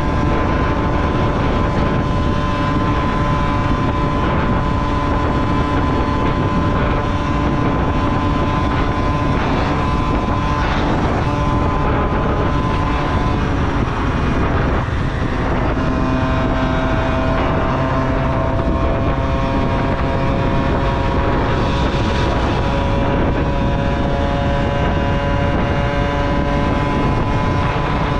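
Honda Topic moped engine running under way at a steady speed, with wind rushing over the microphone. About halfway through, the engine note drops and settles at a lower steady pitch.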